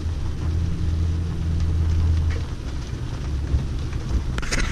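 Ford Super Duty's 6.4-litre Power Stroke V8 turbodiesel running at low speed, a steady low drone heard from inside the cab that eases a little about halfway through. Near the end there is a short, brief noisy rustle.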